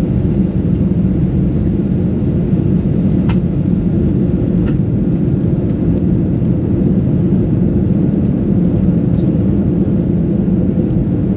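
Steady cabin drone of a Boeing 737-800 in flight, heard from a rear window seat: CFM56-7B engine rumble and airflow noise, strongest in the low range. A couple of faint clicks come a few seconds in.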